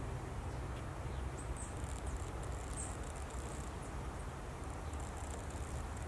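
High-pitched insect buzzing that comes and goes from about a second and a half in, over a steady low rumble. No woodpecker drumming or calling stands out.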